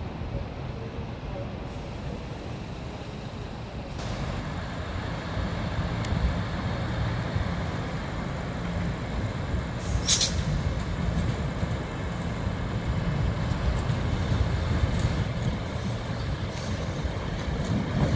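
ScotRail Class 156 Super Sprinter diesel multiple unit running past, its underfloor diesel engines giving a low rumble that grows louder from about four seconds in. A short, sharp hiss of air comes about ten seconds in.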